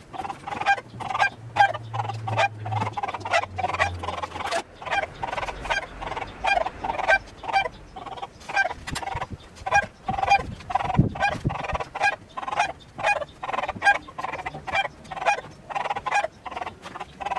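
Domestic fowl calling over and over in a fast, regular run of short calls, about three a second.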